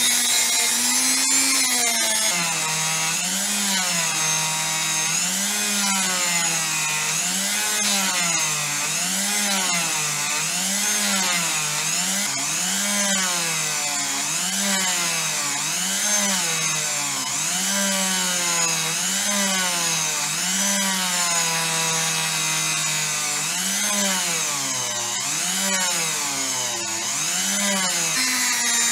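Electric power tool motor running, its pitch dipping and recovering about once a second as it is pressed against the work in repeated strokes.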